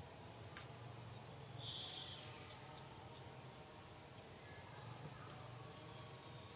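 Quiet forest ambience: an insect's thin, steady high-pitched trill that stops and starts, with one short, louder, high buzzy call about two seconds in.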